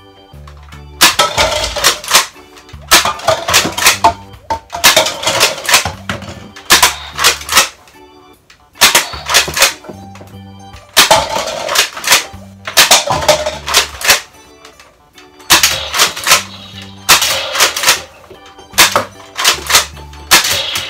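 Nerf N-Strike Longstrike CS-6 spring-powered dart blaster being primed and fired again and again: clusters of sharp plastic clacks about every two seconds, over background music.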